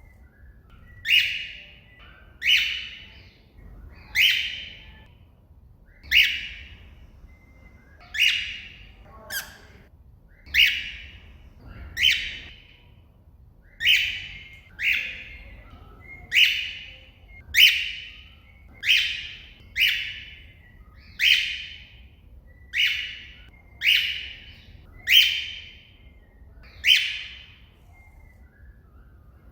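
Cockatiel giving its contact call over and over: short, shrill calls that each slide down in pitch, about one a second or so, calling for another bird.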